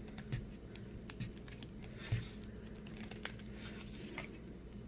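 Faint scattered clicks and brief scrapes of keys prying at the lid of a frozen container, which is too frozen to come open.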